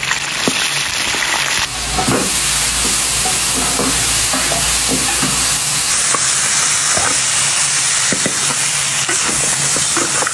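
Pork bones sizzling as they are stir-fried with dried chilies, ginger and sauce, with a spatula clacking and scraping against the pan.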